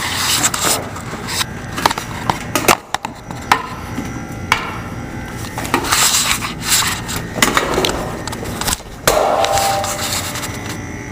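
Irregular knocks, clicks and scraping as the doors and panels of a 1955 GE combination wall refrigerator are handled, with a brief squeak about nine seconds in.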